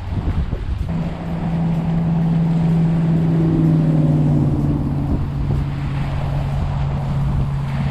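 An engine droning steadily from about a second in, dipping slightly in pitch midway, over a low wind rumble on the microphone.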